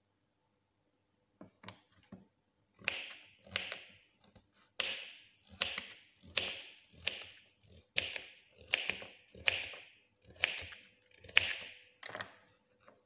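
A carrot being worked with a hand-held kitchen blade in steady strokes, a little over one a second, each sharp at the start and fading quickly; a few light taps come first.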